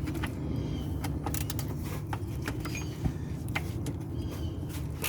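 Tools and parts being handled under a car: scattered light clicks and taps over a steady low hum.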